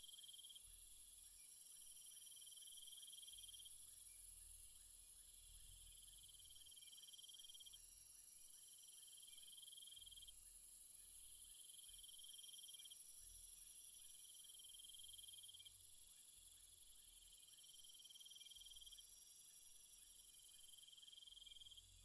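Faint insect chorus: a steady high shrill over a lower chirring trill that comes and goes in phrases of one to two seconds.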